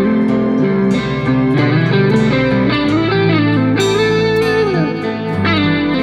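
Instrumental background music led by a guitar, with notes that bend and slide in pitch over a steady low bass line.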